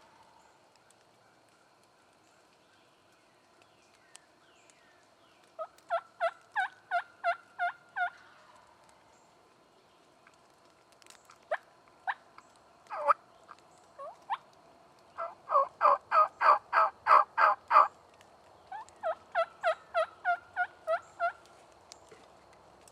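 Wild turkey yelping in runs of evenly spaced notes, each breaking from a higher to a lower pitch. There is a run of seven about six seconds in, a few scattered clucks around eleven to fourteen seconds, a louder run of about a dozen, and a final run of about eight near the end.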